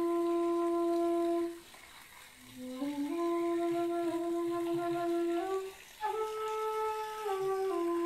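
Background music: a slow solo flute melody of long held notes. The first note breaks off about a second and a half in, and after a pause of about a second the melody climbs again in small steps, with another brief break before a higher phrase.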